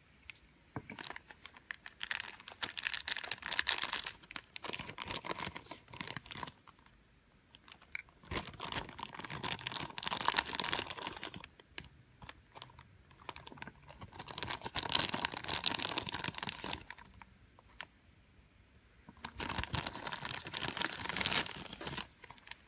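Thin clear plastic bag crinkling and rustling as small plastic figure parts are handled and taken out of it, in four bursts of a few seconds each with short pauses between.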